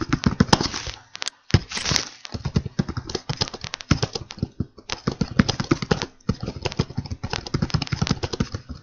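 Fast typing on a computer keyboard: a quick run of key clicks, broken by a few short pauses.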